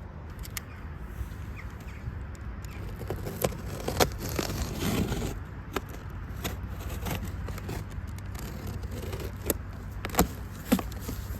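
Packaging and an object being handled: scraping and crackling with a string of sharp clicks and knocks, the loudest about four seconds in and again near the end, over a low steady rumble.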